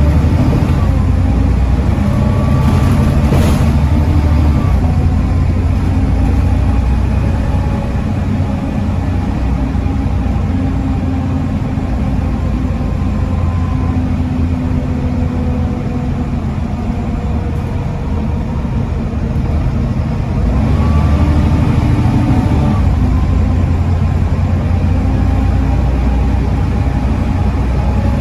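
Volvo D7C 7.3-litre six-cylinder diesel engine of a Volvo B7TL double-decker bus running under way, heard on board. It eases off through the middle, then pulls harder again about three quarters of the way in.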